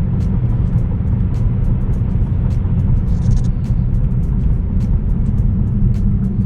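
Steady low road and engine rumble inside the cabin of a BMW 328i xDrive driving along at a constant pace.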